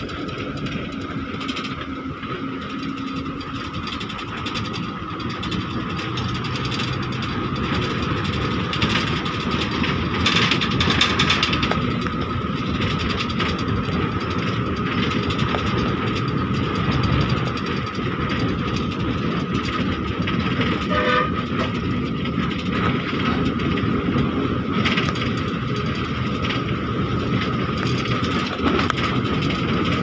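Passenger train coach running along the track, heard at the coach window with rushing air, and a steady high tone throughout. It grows somewhat louder about a third of the way through.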